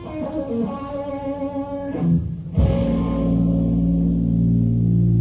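Blues-rock trio playing live on a low-fidelity recording: a Fender Stratocaster electric guitar plays a falling run of notes, then strikes a loud held chord over the bass guitar about two and a half seconds in.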